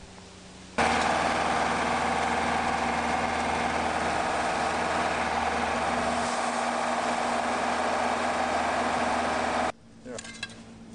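An engine running steadily with a constant hum; it cuts in abruptly about a second in and stops just as abruptly near the end.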